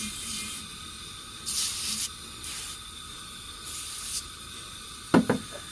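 Glass cleaner squirted from a trigger spray bottle, about four quick sprays, over the steady hiss of a stove burner running in the background.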